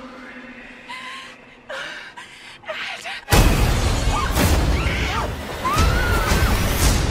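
Horror trailer sound design: a quiet opening with a few short gasps. About three seconds in, a sudden loud hit of dark score, with a man's wavering shouts and screams over it.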